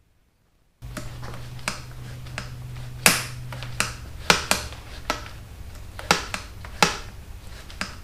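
Sharp clicks and taps of small hand tools and metal parts being handled while the controls are fitted on motorcycle handlebars, about a dozen at uneven intervals, the loudest about three seconds in. Under them runs a steady low hum that starts abruptly about a second in.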